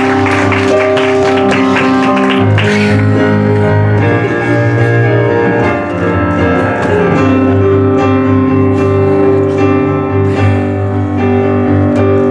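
Live piano accompaniment playing sustained chords and a melody, with applause dying away in the first few seconds.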